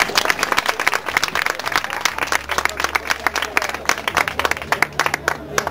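Audience applauding, a dense patter of hand claps that stops near the end.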